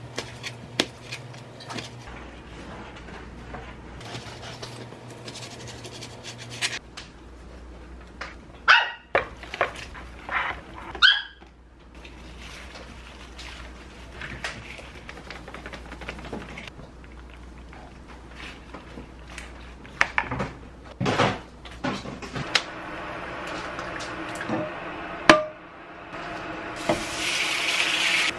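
A cleaver knocking on a cutting board as it cuts squid, and a dog barking in two short bursts about a third of the way in. Near the end, chive pancake batter is ladled into hot oil in a frying pan and sizzles.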